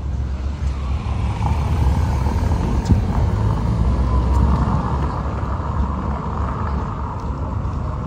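A motor vehicle passing, its engine and tyre noise swelling and fading over several seconds, over a steady low rumble.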